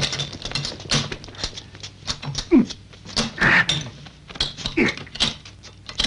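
Dense crackling and clicking from a burning fire, with a man's short groans of pain falling in pitch several times.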